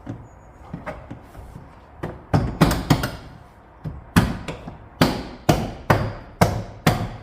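Plastic tailgate trim panel being struck by hand to snap its clip tabs into the holes: a dozen or so sharp knocks, starting about two seconds in and coming about every half second.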